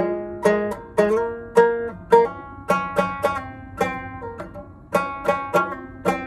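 Five-string banjo played solo: a run of plucked notes and chords, a few a second, each ringing and fading, improvised in the Phrygian mode.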